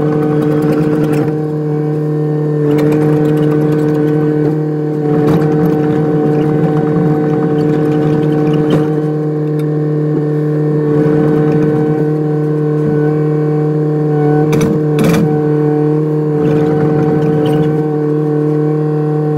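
Kubota excavator running at a steady speed, its engine and hydraulics giving a steady pitched hum, with a few scattered knocks, the loudest two close together about fifteen seconds in.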